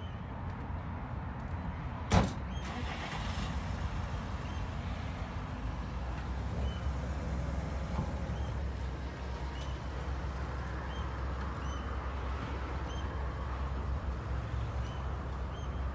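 A vehicle engine idling with a steady low rumble. One sharp knock sounds about two seconds in, and faint high chirps repeat through the second half.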